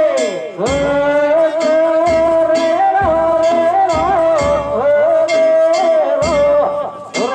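Danjiri festival music: a held, wavering melody line over heavy drum strokes at irregular intervals and frequent bright metallic clanks from hand gongs.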